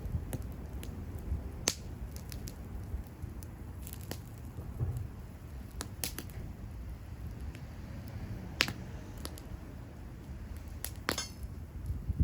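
Wood bonfire burning, crackling with sharp pops every second or two over a low rumble.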